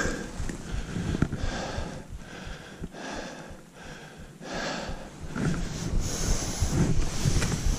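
Skis carving through snow in quick turns, making rhythmic swishes about two a second, with wind rumbling on the microphone, louder in the last few seconds.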